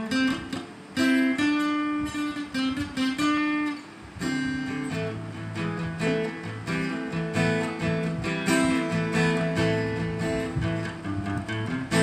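Acoustic guitar playing a song's instrumental introduction. Single picked notes come first, then fuller chords with bass notes from about four seconds in.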